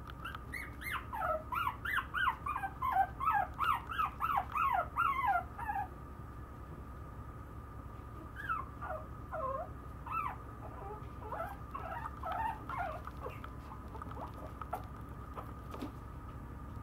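Maltese puppy whimpering in a quick run of short, high cries, each falling in pitch, about three a second for some five seconds. Fainter, scattered cries follow later.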